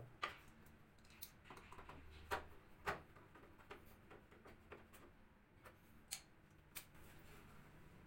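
Faint scattered clicks and small knocks of a screwdriver working the screws of a washing machine's plastic top panel while it is held in place, with two sharper clicks about two and three seconds in.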